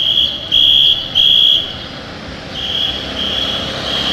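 Shrill warning whistle blown in short blasts, three quickly at the start and three more about a second later, the first three louder, over the hiss of the passing bunch on the road.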